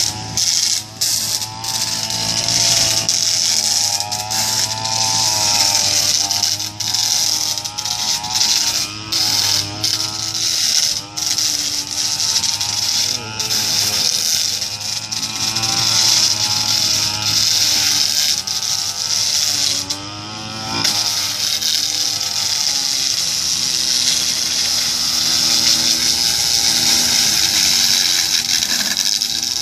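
Kazumi SUM 328 brush cutter's small engine running, its pitch wavering up and down. Over it is a steady hiss as the spinning metal blade grinds against concrete, throwing sparks. The grinding drops out briefly many times, and once, about two-thirds of the way through, the engine pitch rises.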